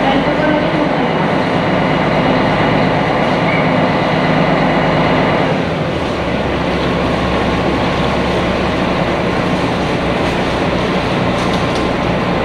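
Sightseeing boat's engine running steadily, heard aboard. About halfway through the note changes, a deeper rumble coming up.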